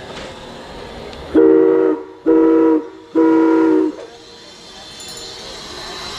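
Steam whistle of the Laona & Northern No. 4, a 1916 Vulcan 2-6-2 steam locomotive, sounded in three short blasts. A steady hiss builds up near the end.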